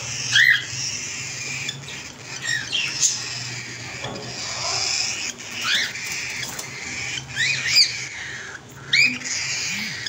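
Cockatiels giving short, sharp chirps, about seven scattered through, each a quick rise and fall in pitch, over a steady low hum.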